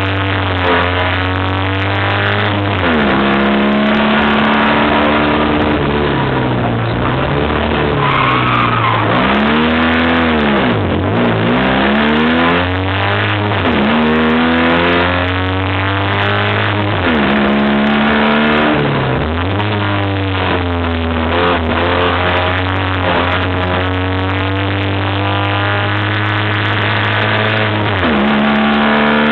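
Fiat 126 rally car's two-cylinder engine heard from inside the cabin, revving hard and climbing through the gears, its pitch dropping sharply at each of several gear changes. About a third of the way in the revs fall away for a few seconds, then climb quickly again.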